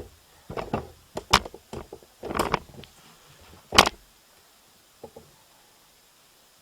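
Handling noise from plastic powerline Ethernet adapters being moved and set down: a run of sharp knocks and clicks over about four seconds, the loudest near the four-second mark, then one faint click.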